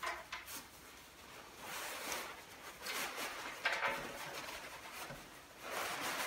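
Tent fabric and the bag's material rustling and rubbing as a tightly crammed rain fly is pulled out of a front roll bag, in a few short swishes with quieter gaps between.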